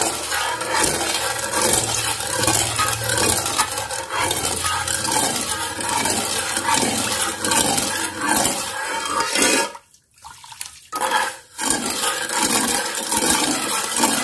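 Steel ladle stirring sugar into milk in a steel cooking pot: the liquid swishes and the metal ladle works against the pot. The stirring stops briefly twice, about ten seconds in.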